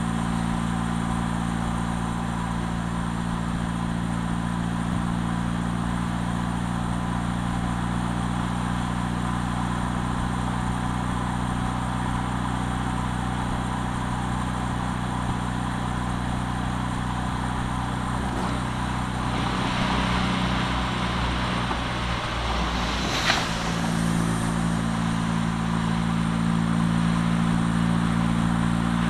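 A car driving at a steady pace, heard from outside the body: a steady engine hum with tyre and wind noise. About three-quarters of the way through, the noise swells for a few seconds and there is one sharp click, then the steady engine hum carries on.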